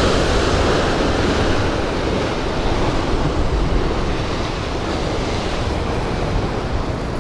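Ocean surf breaking and washing over the rocks below, a steady roar that is loudest at the start and slowly eases as the wave passes.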